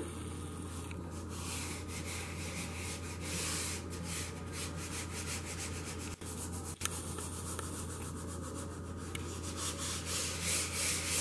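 Gloved hands rubbing and smoothing aida cloth down onto a tray of shaving cream, a soft, repeated brushing and rubbing, over a steady low hum.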